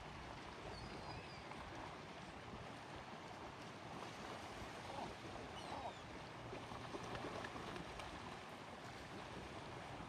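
Lakeshore ambience: a steady, faint rush of background noise, with a few brief, high bird chirps about a second in and again around six seconds.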